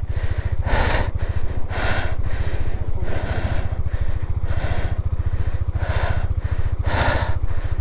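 390cc KTM single-cylinder motorcycle engine labouring at low speed on a rough, steep trail under a heavy load. A fast steady low beat runs throughout, with bursts of hissing noise about once a second.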